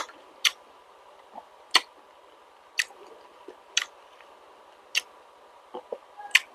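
Close-miked chewing of boiled fertilized duck egg (balut) with vegetables: soft mouth sounds with sharp crisp clicks roughly once a second.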